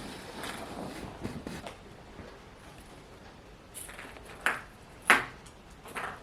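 A plastic ping pong ball batted around by kittens on a hard floor: soft scuffling and rolling in the first second or two, then two sharp clicks of the ball striking the floor about half a second apart past the middle, and another near the end.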